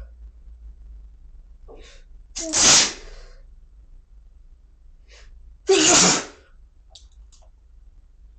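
A person sneezing twice, deliberately induced sneezes: the first about two and a half seconds in, the second about six seconds in. A faint short breath comes just before each.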